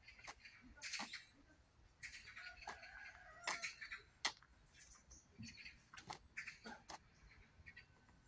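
Faint birds chirping: short, scattered calls throughout, with a brief wavering call a few seconds in.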